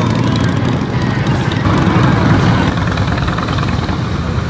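Motorcycle and trike engines running at low speed as the bikes roll past. The sound changes about two seconds in.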